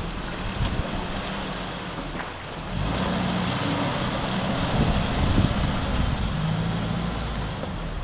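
Beijing jeep's engine running as it drives through a shallow river and climbs out onto the gravel bank, with water splashing around its wheels. The engine grows louder about three seconds in.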